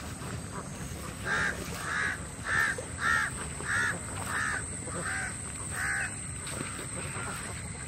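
A bird calling eight times in a steady series, the calls coming about two-thirds of a second apart, starting a little over a second in and stopping around six seconds.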